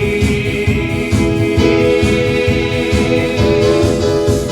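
Worship band music playing an instrumental passage between sung lines, with held chords, guitar and a steady beat.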